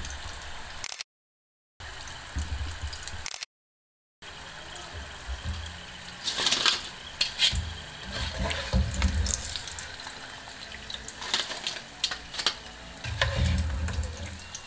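Battered tofu deep-frying in oil, a steady sizzle, with a wire-mesh strainer scraping and clinking against the pot from about six seconds on. The sound cuts out to silence twice in the first few seconds.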